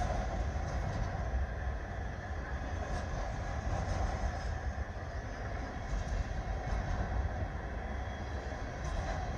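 Freight train flatcars loaded with containers rolling steadily past: a continuous low rumble and rattle of steel wheels on rail, with a few faint clicks.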